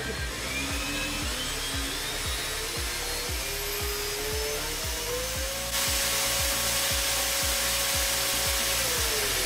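Scheppach MBS1200xts portable metal bandsaw's 1100 W motor running without a cut, a whine rising in pitch in steps as it speeds up, getting louder and harsher about six seconds in, then dropping in pitch near the end. Really loud. Background music with a steady beat underneath.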